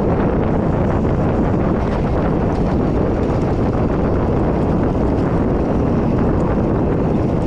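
Wind buffeting the camera microphone while a mountain bike is ridden on a trail: a loud, steady rumble with a few faint clicks.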